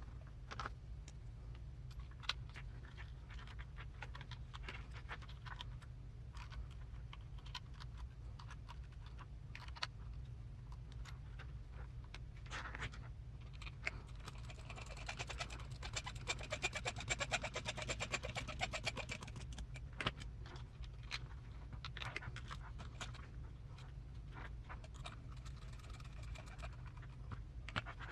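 Small parts and tools being handled during hand assembly of an RC crawler transmission: scattered light clicks and taps. From about halfway in there are several seconds of fast, dense ticking, all over a steady low hum.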